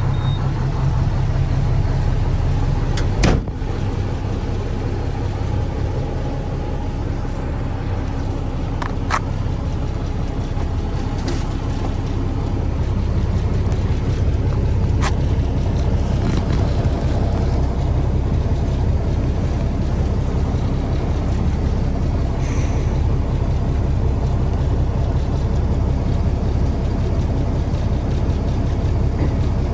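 Diesel engine of a Mack Granite stone slinger truck running steadily, with one sharp knock about three seconds in and a few faint clicks later; the deep rumble grows a little stronger around the middle.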